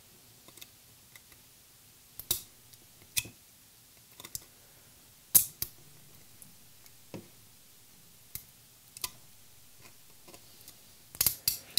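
Flush cutters clipping PLA support material off a 3D print: sharp, irregular clicks and snaps as pieces of plastic are cut and break away, with a quick run of snaps near the end.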